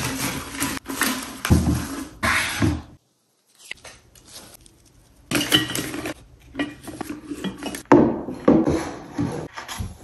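Close-up handling sounds of artificial hydrangea stems being pushed into glass and ceramic vases: rustling and scraping in three bursts, the first lasting about three seconds, then a quiet gap before the other two.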